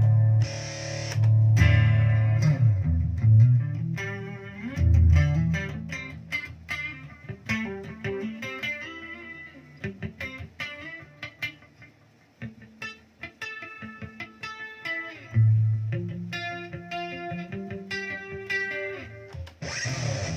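Electric guitar played through a Zoom G1Xon multi-effects pedal. A few loud strummed chords open, then quick picked single notes and arpeggios follow, and chords come in again near the end.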